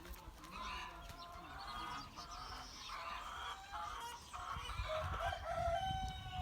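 A flock of chickens clucking and calling over one another, with one long drawn-out call near the end. A low rumble runs underneath in the second half.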